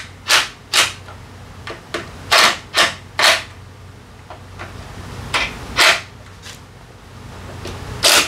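Cordless impact wrench firing in short, sharp bursts with pauses between, on the drive-face pulley nut of a Honda Forza 350 scooter's belt drivetrain.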